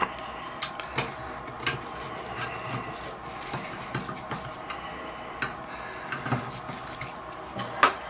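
Irregular light metallic clicks and scrapes of a screwdriver working at a Moen Posi-Temp shower valve cartridge, with one sharper click near the end.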